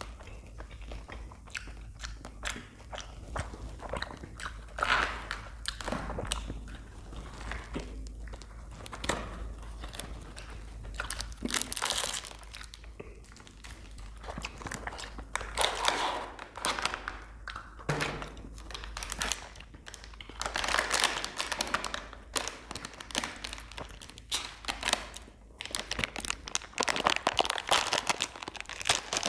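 Close-up crinkling of plastic ice-cream wrappers and a cardboard ice-cream box being handled, in irregular rustling bouts, with some crunchy chewing in between.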